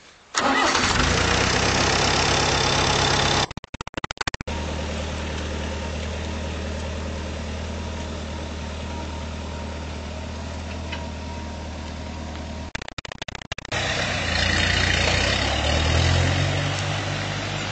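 Farm tractor engine running steadily as it tows a loaded trailer, broken twice by brief cuts; near the end the engine note rises in steps.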